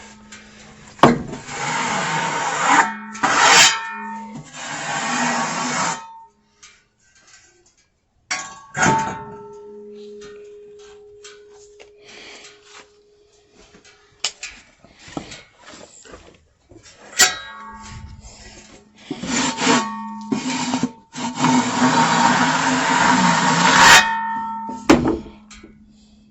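Portable band sawmill blade cutting through a log, a rasping hiss over a steady hum, in two long loud stretches with quieter gaps between them.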